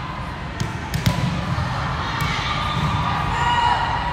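Indoor gym ambience with a low steady hum. A couple of sharp thuds, about half a second and a second in, sound like a volleyball bouncing on the court floor. Faint, indistinct voices carry through the hall.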